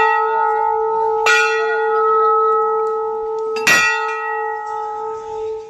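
Large hanging temple bell struck by its clapper three times: at the start, about a second in, and nearly four seconds in. Each strike rings on in a long, slowly fading hum that overlaps the next.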